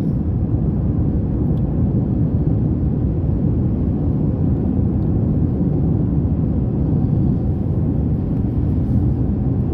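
Steady low rumble of a car driving, heard from inside the cabin: tyre, road and engine noise at a constant cruising speed.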